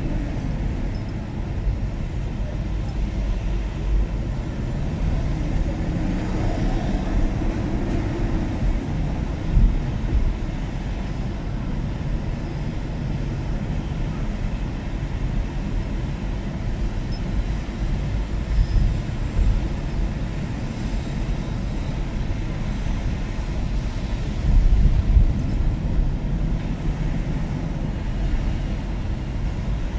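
BMW E39 535i's V8 engine and tyre noise while driving: a steady low rumble. The engine note rises and falls about a quarter of the way in, and there are a few brief louder bumps.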